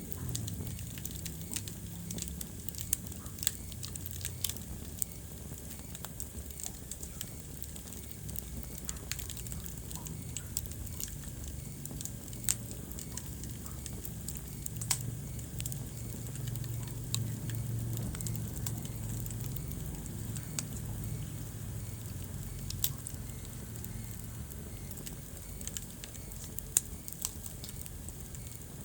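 Wood fire crackling in a fireplace: irregular sharp pops and snaps, a few louder than the rest, over a steady low rumble of the flames.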